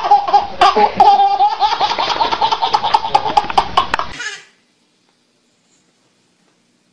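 A small child laughing hard in rapid, high-pitched bursts, which cut off suddenly about four seconds in, leaving silence.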